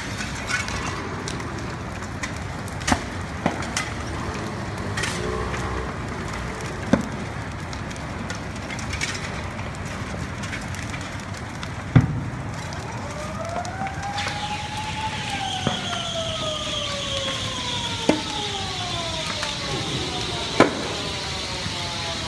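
Building fire cracking, with sharp pops and bangs every few seconds; the loudest comes about twelve seconds in. From about thirteen seconds in, a siren winds up and then slowly falls in pitch.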